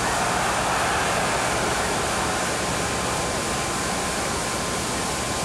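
Arena crowd noise at a boxing match, swelling over the first couple of seconds and then settling into a steady din, heard through the hiss of an old broadcast recording with a faint steady tone.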